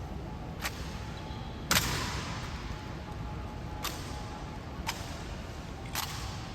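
Honor guard rifle drill: five sharp, separate knocks spaced one to two seconds apart, the second the loudest and ringing on in the hall's echo.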